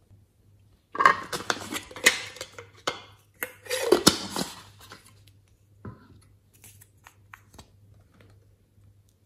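Hands handling a hard plastic strawberry-shaped container and its leaf lid: a dense run of plastic clicks, knocks and scrapes starting about a second in and lasting about four seconds, then a few faint taps.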